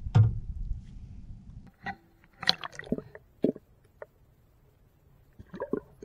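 A low bump at the start, then short splashes and gurgles of water in two clusters, about two seconds in and near the end, as a small redfish is let go over the side of the boat.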